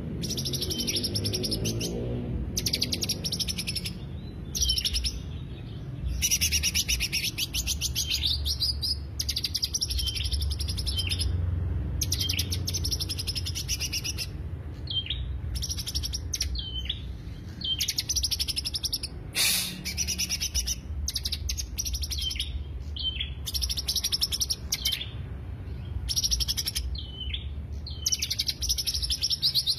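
Cucak hijau (green leafbird) song played as a lure recording: bursts of rapid, high chattering trills, each a second or two long, repeated with short pauses, over a low steady hum.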